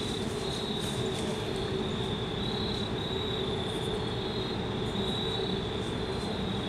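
Evening insect chorus of crickets: a steady high chirring that pulses gently, with a steady low hum and rumble underneath.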